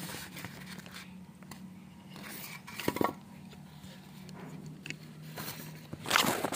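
Plastic and foam wrapping rustling and crackling, with light knocks, as a home theater Blu-ray unit is lifted and turned over in it; the crackling gets louder near the end. A faint steady hum runs underneath.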